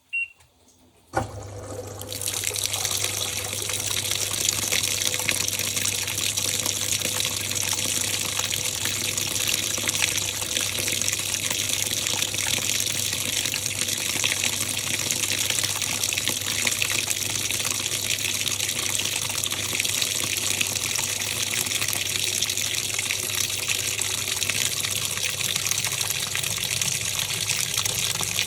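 Top-loading washing machine starting its cycle: a short beep, a click about a second in, then a steady low hum and the loud, steady rush of water filling the tub.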